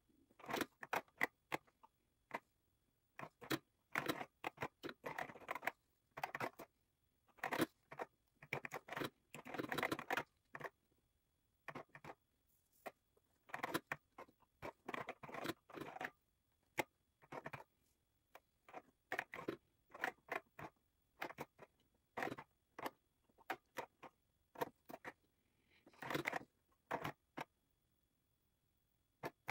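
Keystrokes on a TRS-80 Model III's mechanical keyboard, typing a BASIC program, played back at four times speed: dense runs of clicks broken by short pauses.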